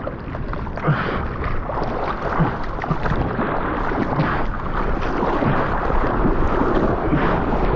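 Sea water rushing and splashing around a surfboard as the surfer paddles, with irregular splashes from the arm strokes, picked up close to the water by a board-level GoPro.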